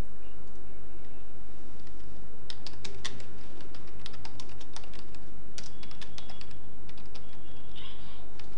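Computer keyboard typing: irregular runs of key clicks that start about two and a half seconds in, over a steady low hum.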